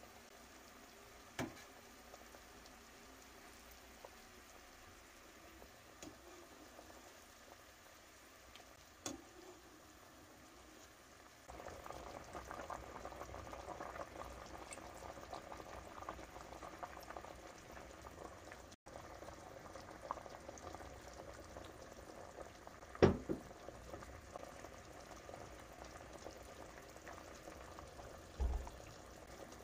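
Pot of beef seaweed soup boiling at a steady bubble, growing louder a little over a third of the way in. A few light clicks and one sharp knock a little past two thirds of the way in, metal utensils against the pot.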